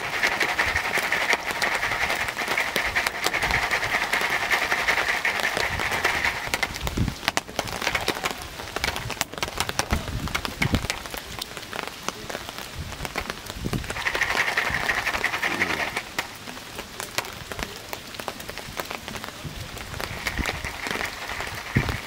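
Popcorn cooking in a foil popcorn pan over a wood campfire: a dense rain-like crackle of sizzling and popping kernels, with a hissing rattle inside the foil that comes and goes in three spells. The rattle is the sign that the popcorn is still cooking; it is left on the fire until the rattle dies away.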